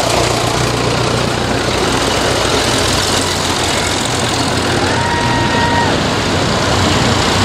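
Engines of vintage tractors running steadily as the tractors drive slowly past one after another. A short, steady high tone sounds for about a second about five seconds in.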